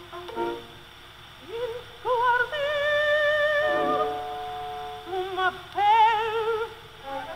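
Early acoustic opera recording from 1908, thin with no high end: a soprano sings long held notes with a wide vibrato, one from about two seconds in and another near the end, over soft accompaniment.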